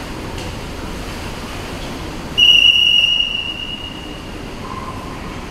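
A single high, steady signal tone, loud for under a second and then fading, over the steady noise of an indoor pool hall: the signal that starts a swimming race or calls the swimmers to the blocks.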